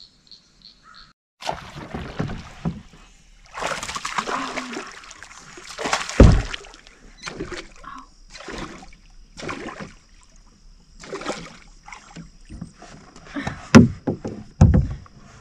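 A hooked bass splashing and thrashing at the surface as it is reeled in beside a plastic pedal boat, with irregular bumps on the hull, a heavy thump about six seconds in and sharp knocks near the end as the fish is swung aboard.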